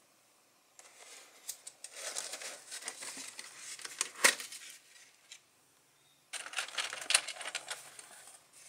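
Stiff clear plastic box cover crinkling in bursts as it is handled and lifted off, with a sharp click about four seconds in, then a second burst of crinkling near the end.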